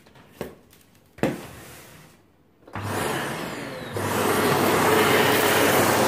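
A light click and a knock, then the Philips PowerPro Compact FC9331 canister vacuum's motor starts up about two and a half seconds in. It rises in two steps to a steady loud whir with a low hum by about four seconds.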